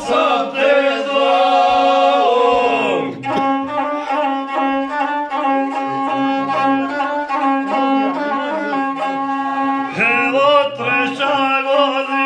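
Men singing a folk song together over a bowed gusle. The voices drop out about three seconds in while the gusle plays on alone, and the singing comes back near the end.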